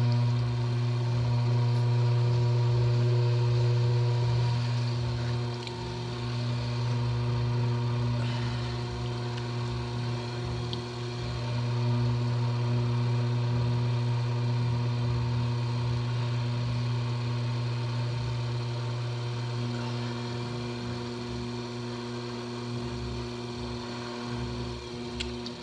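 Electric potter's wheel running with a steady motor hum as the clay spins. The hum drops a little about five seconds in and comes back up about twelve seconds in.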